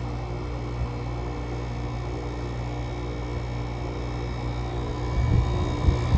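GE AWS05LSK1 5050 BTU window air conditioner running in 15°F cold, its Samsung rotary compressor and fan giving a steady hum. About five seconds in the sound grows louder and rougher, with a low rumble and a couple of knocks.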